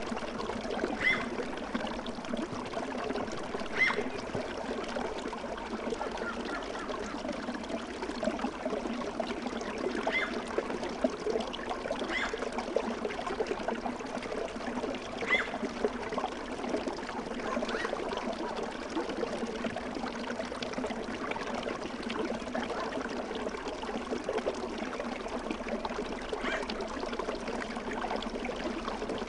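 Running water trickling steadily, like a small stream, as a sleep ambience. Brief higher plinks come every few seconds.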